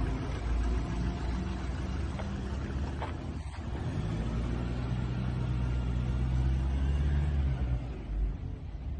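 Ambulance van's engine running as it drives off, a low steady rumble that fades near the end, with no siren sounding.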